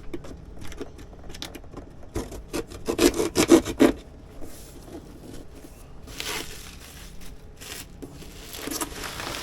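Rubbing and scraping with scattered knocks as large water maker parts are handled and shifted. The knocks are busiest between about two and four seconds in.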